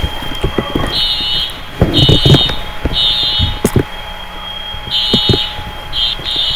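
Dormitory fire alarm sounding: a steady high-pitched tone with a higher pulsing tone over it, roughly once a second, and scattered knocks among it.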